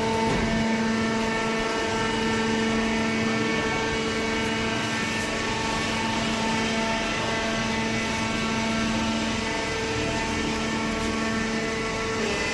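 Small hydraulic cardboard baler's power unit, an electric motor driving the hydraulic pump, running with a steady whine.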